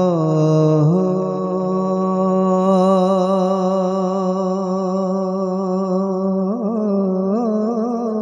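A man's voice singing a naat into a microphone, holding one long note. The pitch steps down at the start and again about a second in, then breaks into wavering ornaments near the end.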